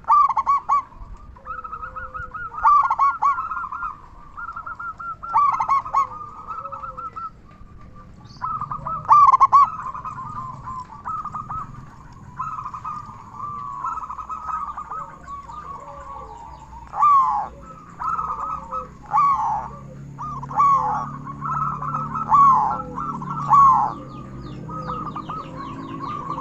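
Zebra dove (perkutut) cooing loudly, in repeated rolling call phrases every second or two.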